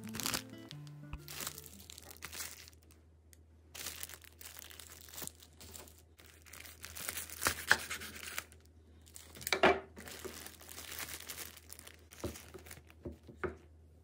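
Food packaging crinkling and rustling as it is handled, with several sharper crackles, after a short background music phrase that ends in the first couple of seconds.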